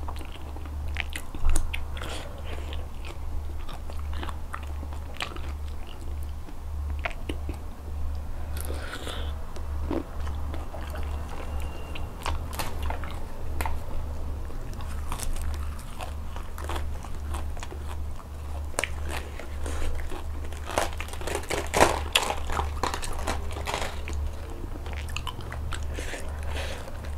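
Close-miked chewing with frequent crisp crunches: a person eating raw shrimp salad with fresh crunchy vegetables and cabbage. The sharpest crunches come about a second and a half in and again late on, over a steady low hum.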